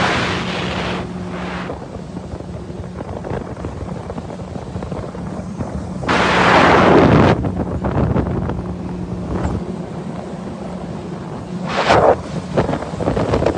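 Jet ski engine running at a steady pitch under wind rushing over the microphone, with louder bursts of rushing noise about six seconds in and again near the end.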